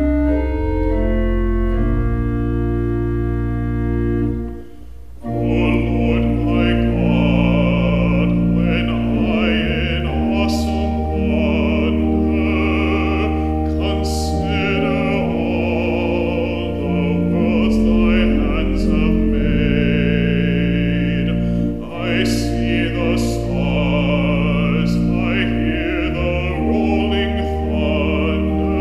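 Church organ playing sustained chords. About five seconds in, after a brief dip, a male soloist begins singing with vibrato over the organ accompaniment.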